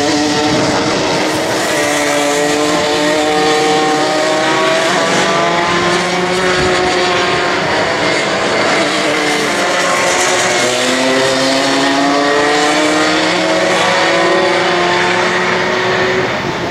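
A pack of two-stroke racing kart engines running hard, several overlapping engine notes rising and falling in pitch as the karts accelerate and lift off.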